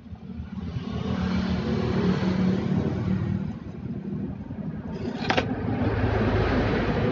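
Compressed air hissing steadily out of the opened drain valve at the bottom of a Mitsushi air compressor tank, blowing out the water that has collected inside. There is one sharp click about five seconds in.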